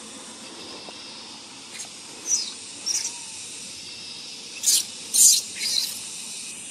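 Newborn macaque squealing: two short high squeaks about two seconds in, the first falling in pitch, then three louder, shriller squeals in quick succession near the end, over a steady hiss.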